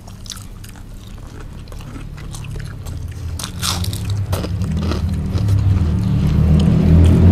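Crunchy bites and chewing of crispy fried moringa-leaf fritters (bakwan daun kelor), a run of short crackles. From about halfway a motor engine grows steadily louder in the background and is the loudest sound near the end.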